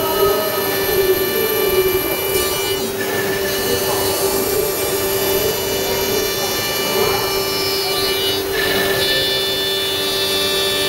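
CNC router spindle running with a steady whine while its cutter routs the edge of a wooden door panel, the noise of the cut over it. The sound shifts briefly twice, about two and a half and eight and a half seconds in.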